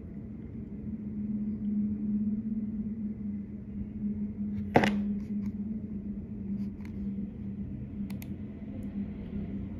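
Room tone with a steady low hum, broken by one sharp click about halfway through and a few faint ticks a little later.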